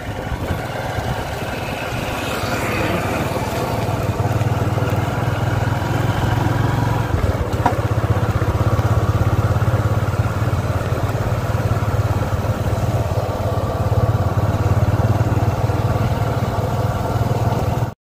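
A vehicle's engine running steadily while driving along a dirt road, with road and wind noise.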